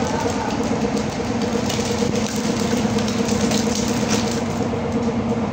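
Rubber-cutting machine spinning a blue rubber tube on a mandrel, running with a steady mechanical hum. A patter of rapid ticks and crackles comes in the middle as loose cut rubber strips whip around the spinning drum.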